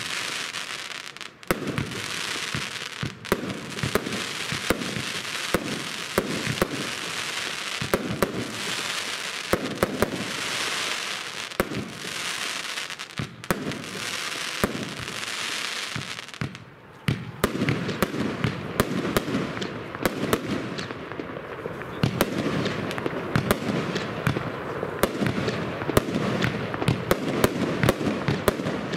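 Lesli 'Massive Escape' compound firework cake firing shot after shot. Each sharp report is followed by a long hiss, repeating about every two seconds. From about halfway the shots come faster and denser, with a crackling quality.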